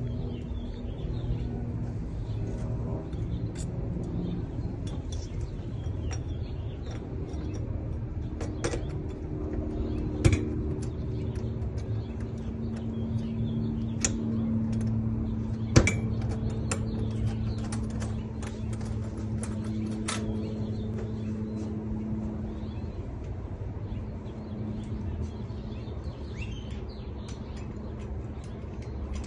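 Scattered light clicks and knocks of lock hardware being refitted on doors, the sharpest about ten and sixteen seconds in, over a steady low machine hum.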